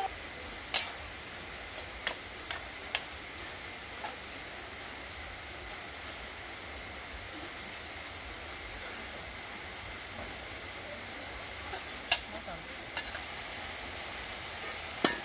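Meat stir-frying in a steel wok, a steady sizzle throughout. A metal ladle clinks and scrapes against the wok several times in the first four seconds and twice more about twelve seconds in.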